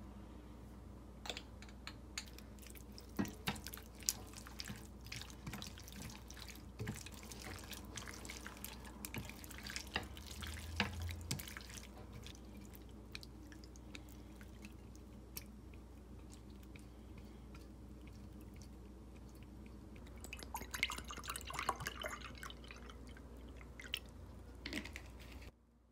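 Quiet kitchen work: scattered small clicks and taps with water dripping, and a busier flurry of clicks about twenty seconds in.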